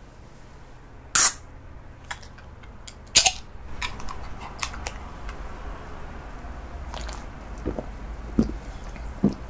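Aluminium can of carbonated cola (Coca-Cola Zero) pulled open by its ring tab: a sharp crack and hiss about a second in, and a second one about two seconds later, then a few small clicks. Near the end come several short swallowing gulps as the cola is drunk.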